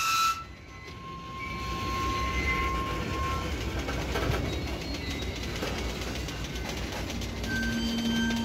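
Freight cars rolling slowly past close by: a steady rumble of steel wheels on the rails. A faint, thin wheel squeal runs through the first few seconds, and a steady low hum comes in near the end.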